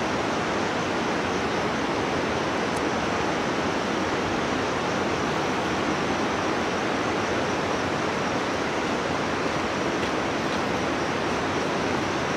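Steady rushing noise, even and unchanging, with no distinct footsteps or other events standing out.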